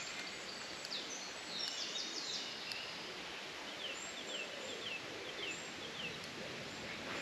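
Small birds singing, with a run of quick falling notes in the middle, over a steady outdoor background hiss.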